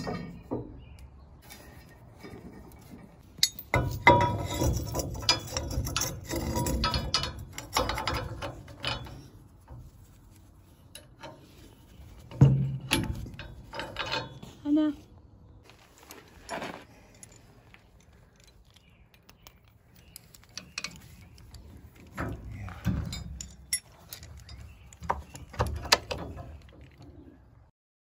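Metal truck-camper tie-down hardware being handled and fitted: scattered clanks and clicks as a square tie-down bar slides into a frame-mounted receiver and turnbuckles and hooks are hung. A denser stretch of scraping and rattling comes a few seconds in.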